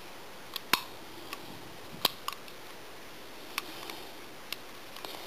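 Kimber Compact Custom 1911 .45 ACP pistol being handled, giving about seven small, sharp clicks at irregular intervals from its metal parts under the fingers.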